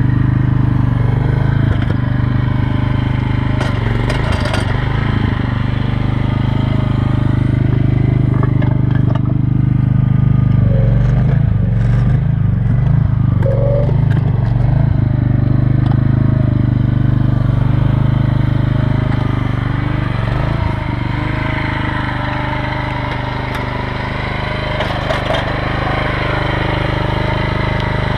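Micro excavator's small engine running steadily, with occasional short knocks and scrapes from the machine at work.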